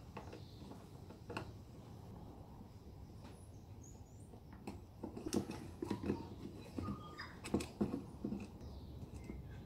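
Faint small clicks and scratches of a screwdriver working the terminal screws of a plastic light fitting while its wires are being connected. These come more often and louder in the second half.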